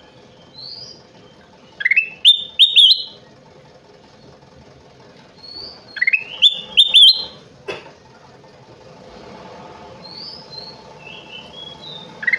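A kutilang emas (ruby-throated bulbul) singing: two loud, short phrases about four seconds apart, each a rising note running into a few quick, bright whistles. Softer short calls come in between, and a single click sounds near the middle.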